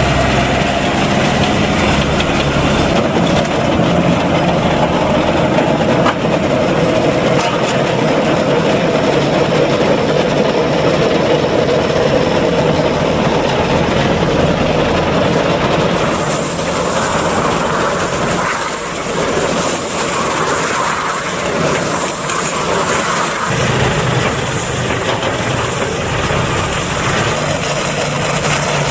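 Agronic MR820 round baler-wrapper running behind its tractor, a loud steady machine noise with a mid-pitched whine. About halfway through the sound changes to a rougher mix with a high hiss for several seconds, then settles back to steady running.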